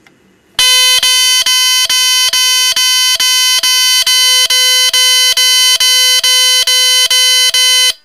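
Smoke detector circuit board sounding its alarm after a 9-volt battery is clipped on with a small click: a loud, harsh buzzing tone broken by short gaps a little over twice a second, which cuts off suddenly at the end. The board has a fault that sets the alarm off constantly whenever it has a battery on it.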